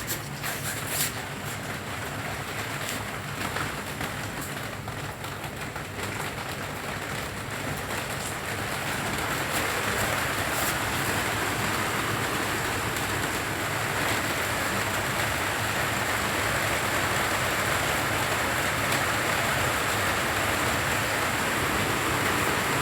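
Rain falling steadily, growing heavier about ten seconds in, with a few sharp drips in the first seconds.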